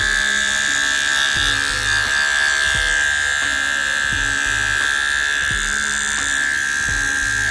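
Cordless Wahl hair clipper running steadily with an even, high-pitched buzz, test-run after being fitted with a new power switch.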